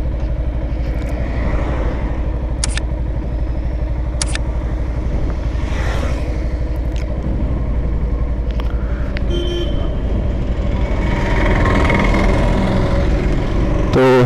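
Yamaha FZS V3's single-cylinder engine running steadily while riding on the road, with wind and traffic noise. Two short high-pitched beeps come about a second and a half apart early on, and the engine grows louder near the end.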